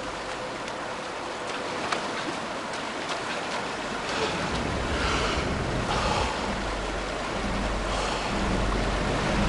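River rapids rushing: a steady roar of white water that grows a little louder and deeper from about halfway through.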